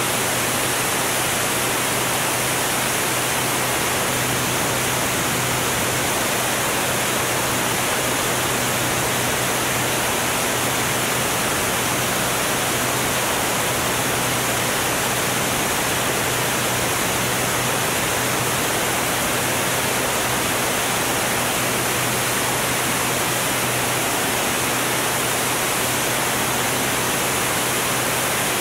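Continuous rush of wind over an onboard camera on a Formula One air racer in flight, with the steady low drone of its Continental O-200 engine underneath. The sound stays even, with no change in pitch or level.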